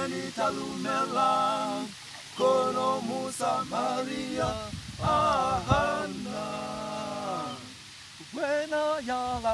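Male vocal group singing a gospel song a cappella in harmony, in held phrases with short breaks between them.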